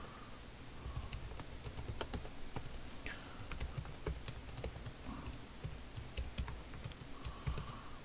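Typing on a computer keyboard: irregular runs of keystroke clicks, fairly quiet.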